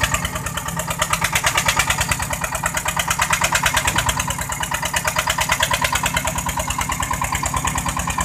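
Fishing boat's engine running steadily with a fast, even chugging while the crew hauls in a net full of fish with the deck winch.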